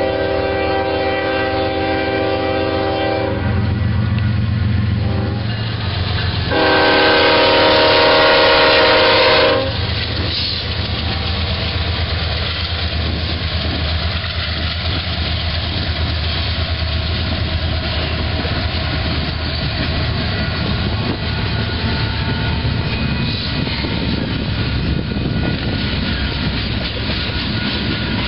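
Union Pacific GE ES44AC diesel locomotive passing, its horn sounding a multi-note chord twice: one blast of about three seconds at the start, a louder one of about three seconds beginning some six seconds in. After that comes the steady rumble and clatter of the double-stack container cars rolling by.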